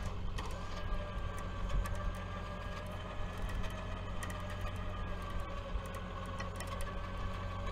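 Tow truck engine running at a steady speed while its winch pulls on the cable, a steady whine over a low rumble.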